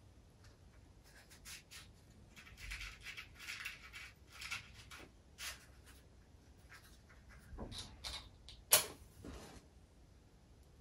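Faint rustling and scraping as a matchbox is handled and opened, then a match scraped on the box's striker, catching on a sharp hissing strike about nine seconds in, the loudest sound here.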